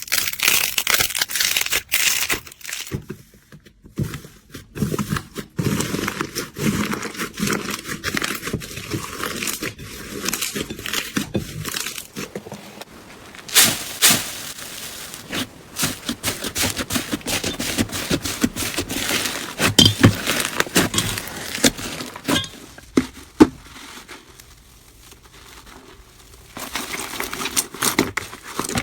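Slime being squeezed, pressed and poked by hand, making dense crackling and clicking pops. The texture of the crackle changes a few times as one clip gives way to the next.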